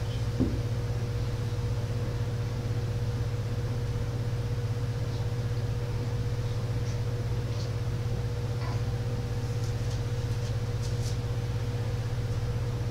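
A steady low hum with a thin steady tone above it, with one short knock about half a second in and a few faint ticks later on.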